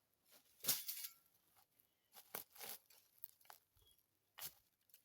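Scattered short crunching and rustling sounds, the loudest about a second in, with a few more around two and a half seconds and near the end.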